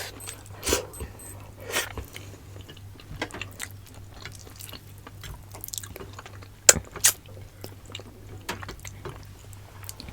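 Close-miked chewing and mouth sounds of someone eating, with scattered short clicks, two sharper ones about seven seconds in, over a steady low hum.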